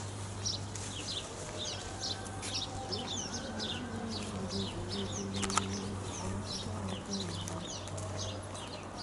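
A chorus of small birds chirping: many short, high, downward-sweeping chirps, several a second, over a steady low hum.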